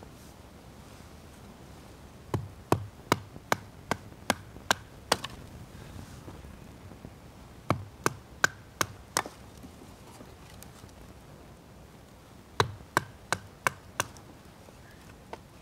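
Knife being batoned through firewood: a wooden baton knocks sharply on the knife's spine to split kindling, in three runs of about five to nine strikes, two or three a second, with short pauses between.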